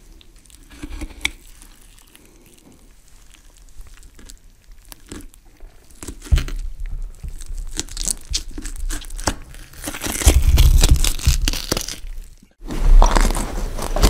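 Horror sound effect of crunching and tearing: sparse crackles at first, growing denser and louder with a low rumble underneath, then cut off abruptly; another loud effect begins right after, near the end.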